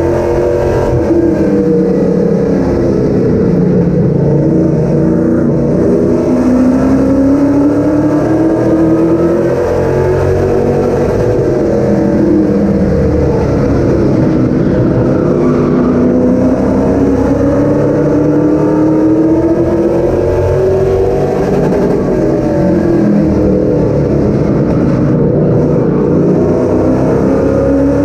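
Several race car engines running hard on an oval track. Their pitch rises and falls again and again as the cars accelerate and lift.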